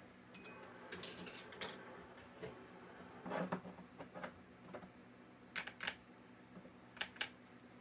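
Small clinks and taps of painting tools being handled at the work table: about a dozen short sharp clicks, several in quick pairs, with a faint steady hum underneath.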